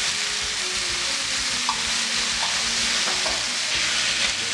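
Chopped tomato, cambuci pepper and red onion sizzling in hot oil in a frying pan while a metal spoon stirs them, with a few light clicks of the spoon against the pan.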